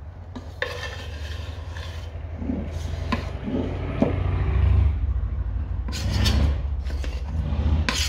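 A metal spoon scraping thick fruit cake batter around a stainless steel pot, with irregular scrapes and a few sharp clinks, over a steady low hum.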